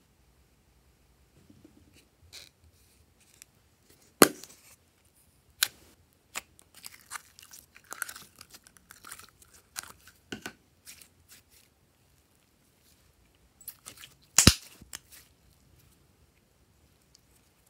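Glossy slime pulled from its plastic tub and stretched by hand: a run of small wet clicks and sticky squishes. A sharp click about four seconds in and another, the loudest, near the end.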